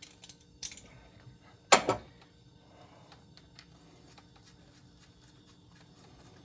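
Hand tools and metal parts being handled during engine work: a few light clicks, one loud clack about two seconds in, then faint scattered ticks.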